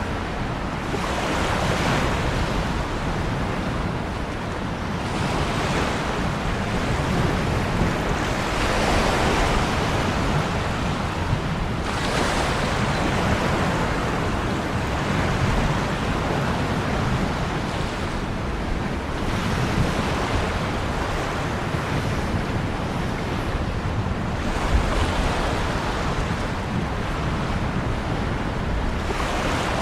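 Ocean surf: waves breaking and washing in, swelling and easing every few seconds over a steady low rumble.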